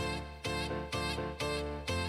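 Instrumental background music with a steady beat, chords struck about twice a second.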